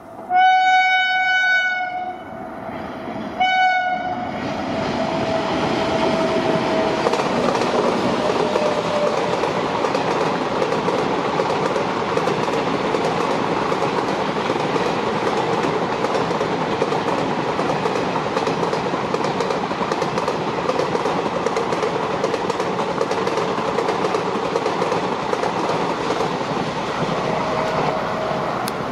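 Indian electric locomotive's horn, a long blast and then a short one within the first four seconds. Then the steady rumble and clickety-clack of a long passenger train's coaches running past.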